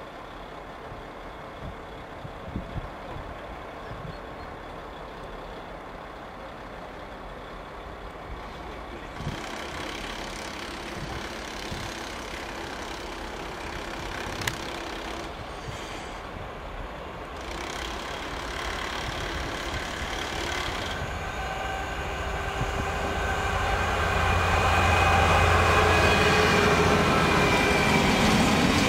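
EWS Class 66 diesel-electric freight locomotive, with its two-stroke V12 diesel, approaching and passing with a train of open wagons. The sound grows steadily louder, with a deep engine hum building over the last several seconds and thin high-pitched wheel squeal as the wagons roll by near the end.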